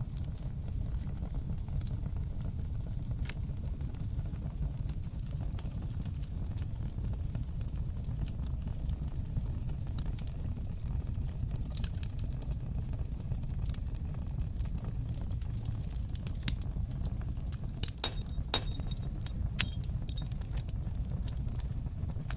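Wood fire crackling in a stone fireplace: scattered sharp pops and snaps over a steady low rumble, with a burst of louder pops near the end.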